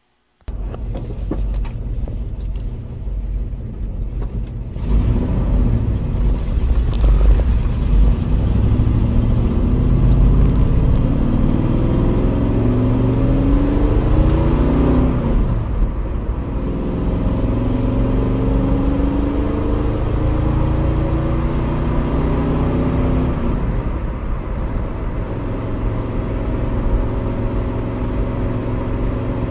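1969 Ford Mustang's V8 with an RV cam, driven through the gears of a Tremec Magnum six-speed manual, heard from inside the cabin. The engine note climbs as it revs, drops at an upshift about halfway through, climbs again, and changes once more about three quarters of the way through.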